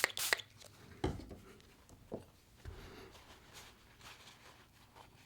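Short hissing spray bursts of Slip 2000 725 gun cleaner near the start. Then quiet handling of small knife parts: a soft knock about a second in, a light click, and faint rubbing.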